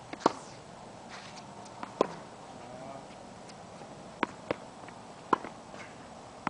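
Tennis balls struck by racquets and bouncing on a hard court during a rally: single sharp pops every second or so, the loudest about a quarter-second in, at two seconds and just past five seconds.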